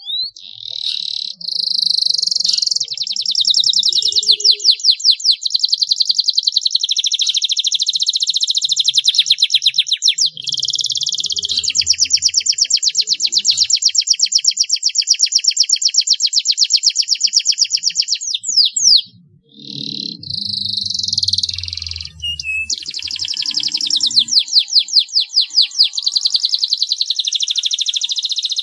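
Domestic canary singing a long song of fast rolling trills and rapid repeated high notes. It breaks off briefly about two-thirds of the way through, then resumes.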